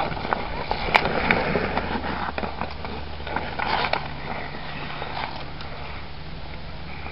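Ice hockey sticks clacking on the puck and ice, with skate blades scraping. Several sharp knocks come in the first four seconds, the loudest about a second in, then the scraping goes on more evenly.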